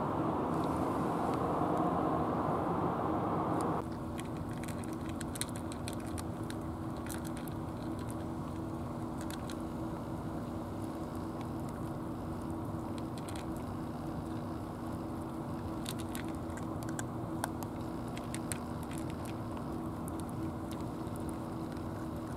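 Cat eating pieces of cat food from a plastic tray: a scatter of small sharp crunching clicks over a steady low hum. For the first four seconds a loud rushing noise covers everything, then stops abruptly.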